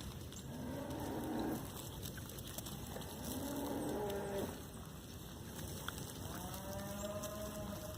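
Goats bleating: three long, drawn-out calls a couple of seconds apart, the last one rising in pitch and then held.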